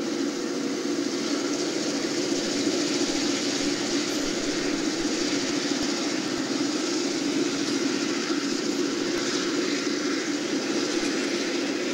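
Recording of an EMD 645E diesel locomotive engine running steadily.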